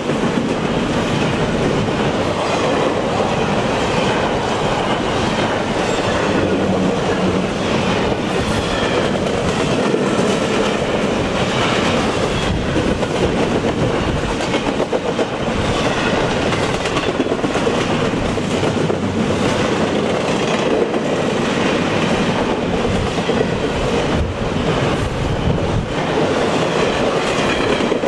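Double-stack container train of well cars rolling past: a steady rumble of steel wheels on the rails with repeated clicking over rail joints.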